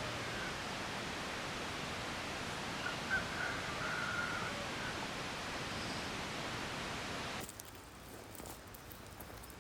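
Steady outdoor noise haze with a faint, distant bird call about three seconds in. Near the end the sound drops abruptly to a quieter background with light ticks.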